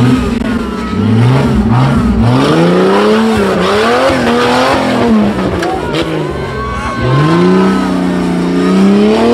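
Off-road 4x4's engine revving hard in repeated bursts: two short blips, then a long climb in pitch that wavers and drops back, and another climb near the end.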